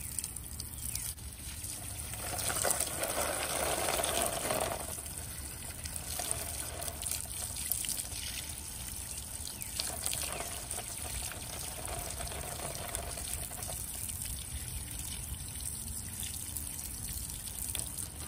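A stream of water pouring and splashing onto an opossum and the wire cage trap it sits in, a steady splashing that grows louder for a few seconds a couple of seconds in.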